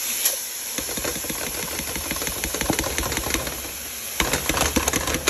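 Dry toasted alphabet pasta pouring into a sizzling frying pan: a fast patter of tiny clicks over the hiss of the pan, with a louder burst of clicks near the end.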